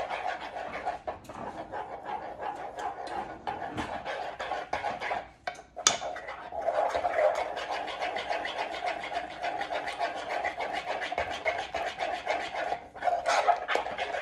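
A spoon beating thick chocolate glaze in a stainless steel saucepan: quick, even strokes scraping and knocking against the pan, with a short pause about five seconds in and a sharp click just before the strokes start again.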